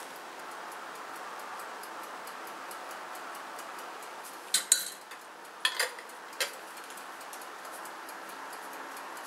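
A few sharp clicks and light clinks, about six in a cluster midway, over a steady faint hiss.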